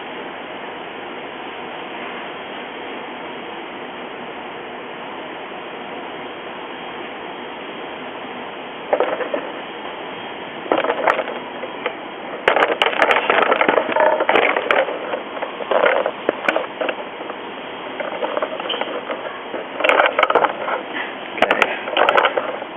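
Steady hiss, then from about nine seconds in a run of irregular clicks, knocks and rustles: the QM-X3's aux spindle assembly and its loose wiring being handled and set down on a table.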